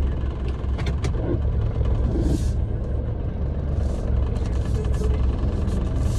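Steady low rumble of a car's engine and tyres heard from inside the cabin while driving slowly, with a few sharp clicks about a second in.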